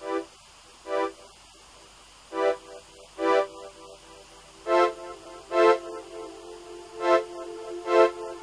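Background music: keyboard chords struck about once a second, with held notes filling in from about halfway through.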